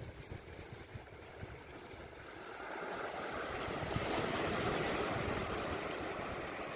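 Water rushing over boulders, swelling to its loudest about four seconds in and then easing, over a low rumble throughout.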